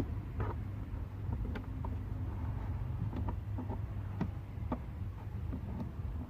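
Scattered light clicks and taps from hands handling the microphone cable and plastic trim inside a car, over a steady low rumble.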